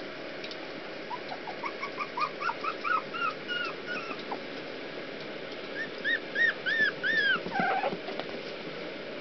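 Young Rat Terrier puppies whimpering: a run of short, high cries that rise and fall, about three a second, starting about a second in, then a louder run of five longer cries around six to seven seconds in.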